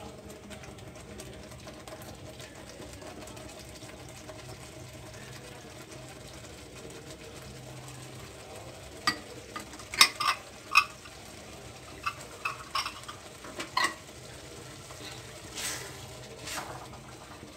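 Spatula stirring masala and freshly added yogurt in a black iron kadai over a low, steady sizzle. From about nine seconds in comes a run of sharp clinks and knocks as the spatula strikes the pan, then two softer scrapes.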